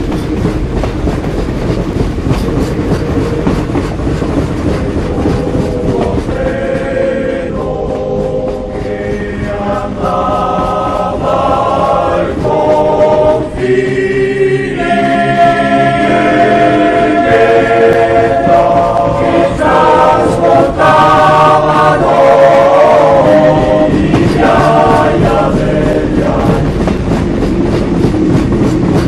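A train running on the rails, with a choir singing over it from about six seconds in.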